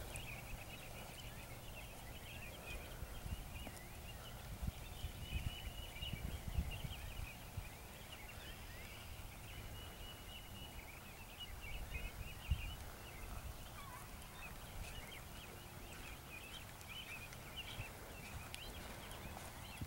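A horse's hoofbeats on soft arena dirt, faint and uneven, under a steady chorus of high-pitched chirping.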